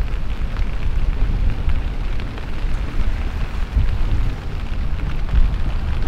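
Wind buffeting the microphone with waves breaking and spraying in rough seas: a steady, heavy low rumble with a hiss of surf over it.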